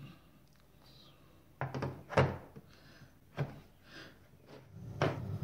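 Screwdrivers being pressed back into a hard plastic case and the case handled: a few separate knocks and clunks, the loudest about two seconds in.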